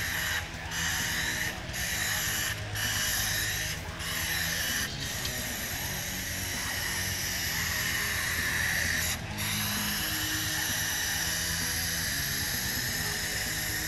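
Paint spray gun hissing in long bursts, broken by short pauses where the trigger is let go, with background music underneath.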